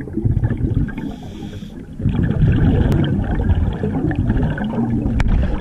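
Scuba diver's exhaled bubbles gurgling and rushing past an underwater camera housing, loud and low-pitched, in two long exhalations with a short lull about two seconds in.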